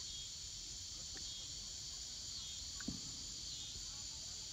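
Steady chorus of trilling insects, with one short knock about three seconds in.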